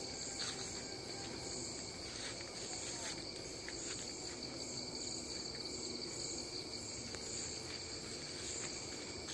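Crickets chirring steadily at a high pitch.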